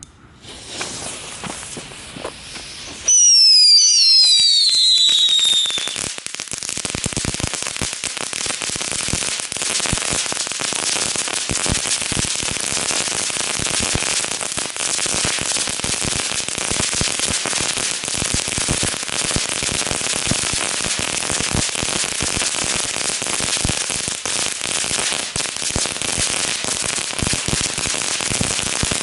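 A cluster of small Category 1 ground fireworks going off. It starts with a soft hiss; about three seconds in, several loud whistles sound at once, falling in pitch for about three seconds. Then comes dense, rapid crackling that carries on steadily.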